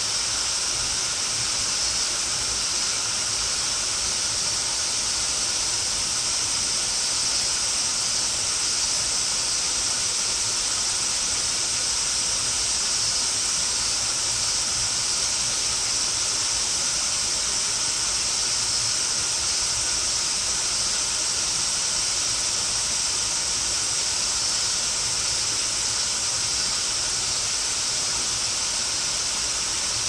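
Waterfall splashing steadily, overlaid by a continuous high-pitched buzzing of summer cicadas; the sound stays even throughout.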